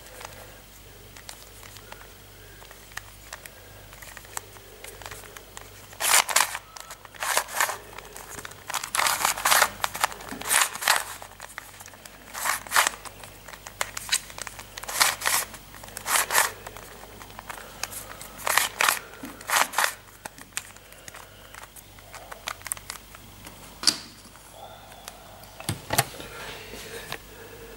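Plastic Rubik's cube being twisted by hand: quick runs of rasping clicks as the layers turn, in bursts from about six seconds in until about twenty. Near the end come a couple of single sharp knocks.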